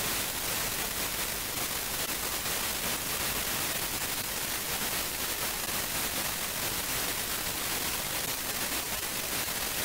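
Steady, even hiss of recording background noise, with no other sound standing out.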